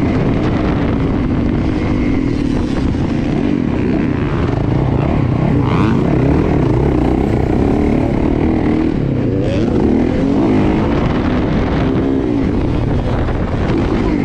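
Yamaha dirt bike engine being ridden hard, heard up close from the rider's helmet. Its pitch rises and falls with throttle and gear changes.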